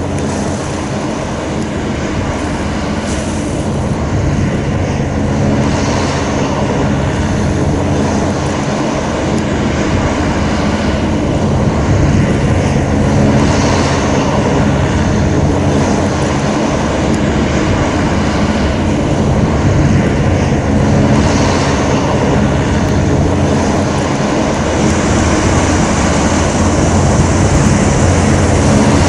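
Hovercraft's engines and twin ducted propellers running at speed, a steady drone with a rushing hiss, growing louder as the craft approaches.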